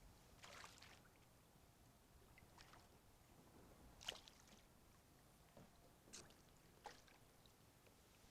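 Near silence broken by about five faint, short splashes and knocks a second or two apart, water and hull sounds around a kayak.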